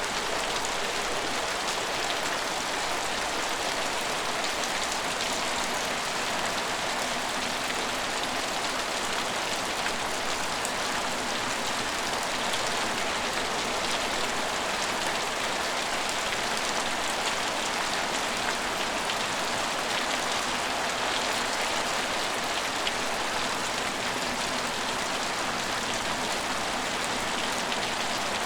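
Steady rain falling and pattering on surfaces, a dense even hiss with fine drop ticks and no change in strength.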